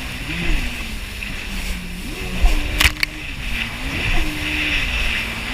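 Jet ski engine running with its pitch rising and falling as the throttle is worked, over a steady hiss of water and wind, with one sharp click near the middle.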